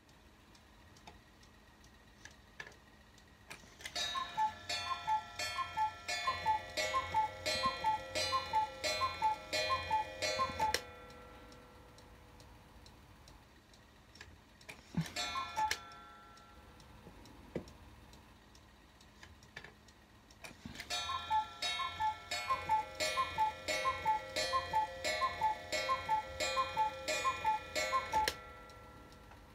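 Carved wooden one-day cuckoo clock calling the hour: its two-note falling cuckoo call repeats about a dozen times in a steady rhythm. Midway there is a single cuckoo call for the half hour. Then comes a second long run of cuckoo calls.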